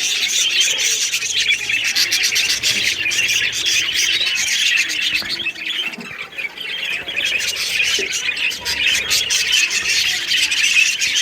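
A flock of small caged breeding birds chattering and squawking all together in a dense, continuous high-pitched din.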